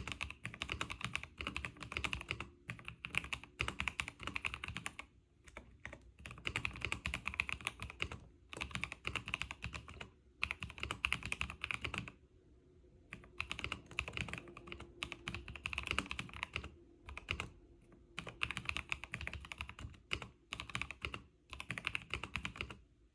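Mechanical keyboard being typed on fast, the keys clacking in quick runs of a few seconds with short pauses between, one of them about a second and a half long around the middle.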